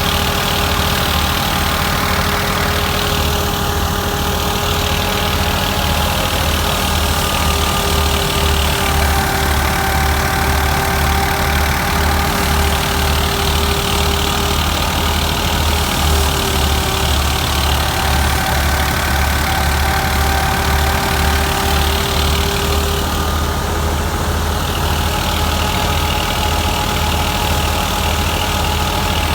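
Farm machinery engine running steadily at a constant speed, with a low regular beat and a steady whine over it.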